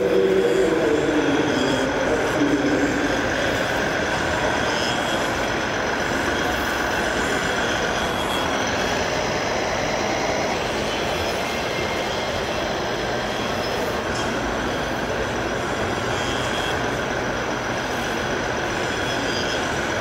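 RC model trucks and construction machines running in a busy exhibition hall: a steady mechanical hum and high whine over a dense hall din, with a tone falling in pitch over the first few seconds.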